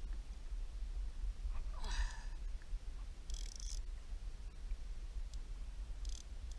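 Steady low rumble of wind on the camera's microphone, with short hissing bursts about two seconds, three and a half seconds and six seconds in.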